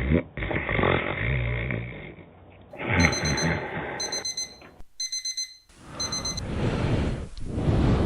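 A person snoring, then an alarm clock ringing in four short bursts about three seconds in. Near the end comes a swelling rush of noise.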